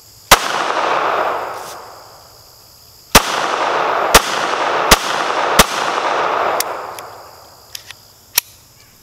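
A .380 pocket pistol, most likely the Taurus Spectrum, fired five times: one shot, a pause of nearly three seconds, then four shots about a second apart. Each shot is followed by a long echo off the surrounding trees, and a couple of fainter sharp sounds come near the end.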